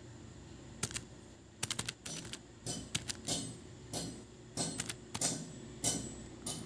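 Buttons being pressed, a quiet series of about fifteen short clicks at an uneven pace, typical of numbers being punched into a calculator to add up a sum.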